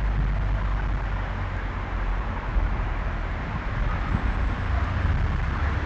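Steady outdoor background rumble and hiss picked up by a garden trail camera's microphone, with no distinct event.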